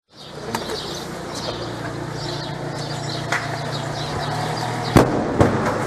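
Field audio of a police raid: a steady low hum under scattered clicks and knocks as officers move in, with two sharp bangs about five seconds in.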